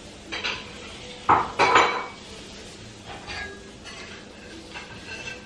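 Kitchenware clattering during cooking: a handful of knocks and clinks of pots, pans and utensils, the loudest two close together about a second and a half in, with lighter clinks later.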